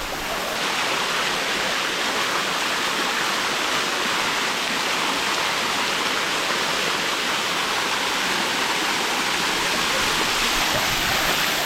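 Water of the Bua Tong sticky waterfall rushing steadily down its cascade, close by, with no breaks or changes.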